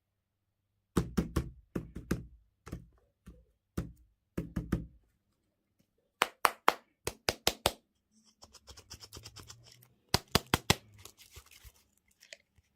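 Hands handling small plastic toy and candy packaging: clusters of knocks and taps with a dull thud to them, then quick runs of crisp clicks and a stretch of rustling about two-thirds of the way in.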